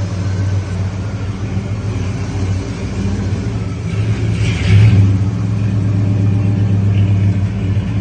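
Ford Thunderbird's FE V8 running at a steady idle, with a brief louder swell about halfway through; the exhaust has no leaks.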